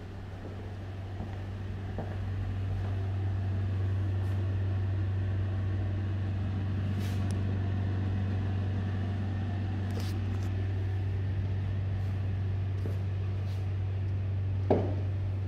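A steady low machine hum that swells over the first few seconds and then holds level, with a few faint clicks and one sharp knock near the end.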